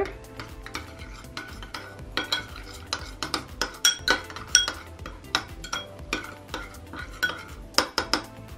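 Metal spoon stirring a thick mayonnaise-and-mustard dressing in a small glass bowl, the spoon clinking and scraping against the glass in quick, irregular ticks.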